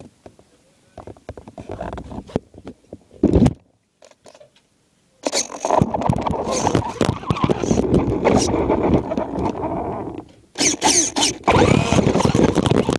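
Onboard sound of a brushless Traxxas Rustler RC truck. A few knocks and one heavy thump come first, then from about five seconds in a loud, dense rattle as the truck runs over snow: motor and drivetrain noise full of chassis jolts, which breaks off briefly twice near the end.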